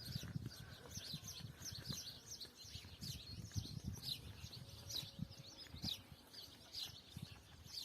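Small birds chirping: many short, high, falling chirps, repeated irregularly and faint. Soft low thumps run underneath.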